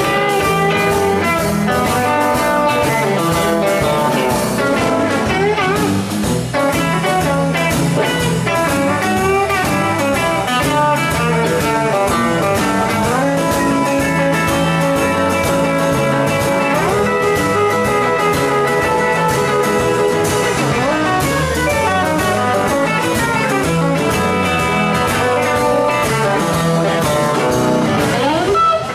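Live blues band playing an instrumental: electric guitar lead lines with string bends over electric bass and a drum kit.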